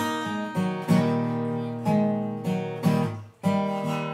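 Acoustic guitar playing a blues accompaniment between sung lines: chords struck about once a second over moving bass notes, with a brief break about three and a half seconds in.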